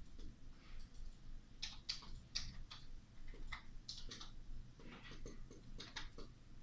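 Irregular light clicks and taps, coming in small clusters.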